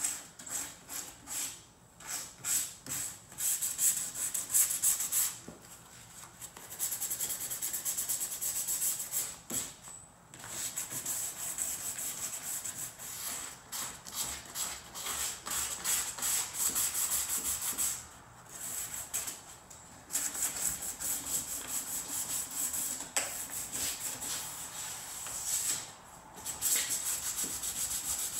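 Hand sanding with 220-grit sandpaper on a foam sanding block: quick back-and-forth rasping strokes scuffing the perimeter of a Land Cruiser's tailgate window frame, pausing briefly every few seconds.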